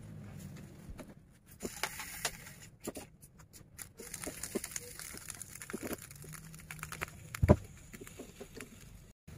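Banana leaves rustling and crinkling as they are laid on a metal steamer tray and leaf-wrapped fish parcels are set onto them, with scattered light taps and one louder thump late on.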